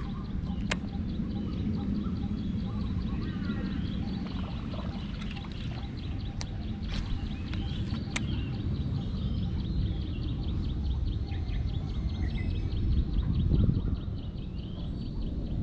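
Open-air ambience: birds chirping now and then over a steady low rumble, with a few sharp clicks and several seconds of fast, even high-pitched ticking in the middle.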